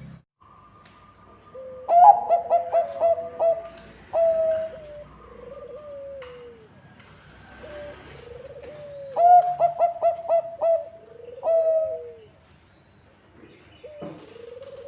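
Zebra doves of the Bangkok perkutut line cooing. A loud song phrase comes twice: a quick run of short staccato notes ending in a longer drawn-out coo. Softer down-curving coos fall between the phrases.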